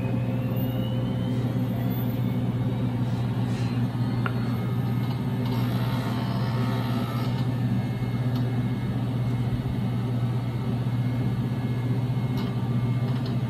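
Power Mac G4 running with a steady hum as it tries to boot on a G4 upgrade card overclocked to nearly 1.6 GHz. A faint rising whine comes in the first few seconds and a few faint ticks follow.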